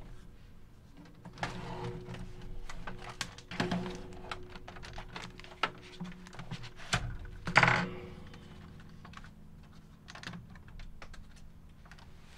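Clicks, taps and knocks of hands and a screwdriver on the metal casing and chassis of a Sony EV-S9000E video recorder as it is turned and dismantled. The loudest knocks come a little past halfway.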